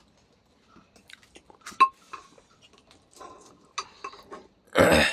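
Eating at a meal: soft chewing with scattered small clicks and taps of a dish, then a short loud rush of noise near the end.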